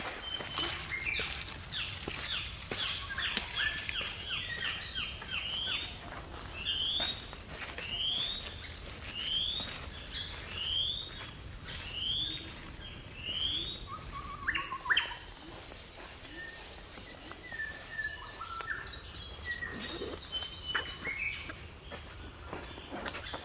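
Forest birds singing: a quick run of chirps, then a string of short rising whistled notes at about one every second and a half, followed by scattered other calls.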